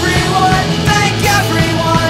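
Rock music playing: a full-band emo rock recording, loud and continuous.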